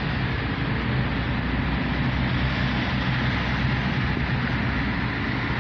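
Steady engine and road noise heard inside the cabin of a moving car, a constant low hum under an even rush of noise.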